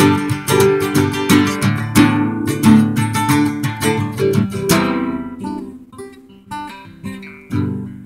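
Acoustic guitar strummed steadily. After about five seconds the strumming thins to a few single strums left to ring out and fade as the song winds down to its end.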